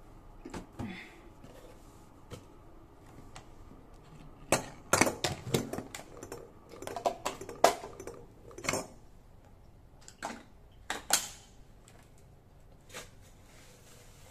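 Kitchenware being handled in a small room: scattered knocks and clinks of dishes and utensils, a busy run of sharp taps and clatters in the middle, and a few more near the end.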